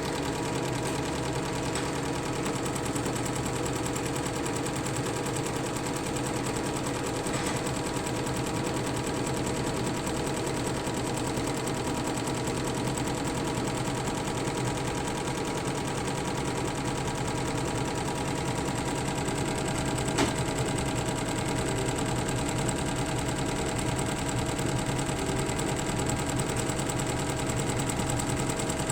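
Fuwei single-head, 15-needle computerised embroidery machine stitching steadily: a fast, even rattle of needle strokes over a steady hum. There is one sharp click about twenty seconds in.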